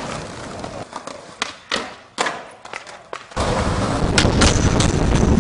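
Skateboard knocks and clacks: several sharp board impacts in the first three seconds. A loud, steady rumbling noise then begins suddenly just past three seconds in.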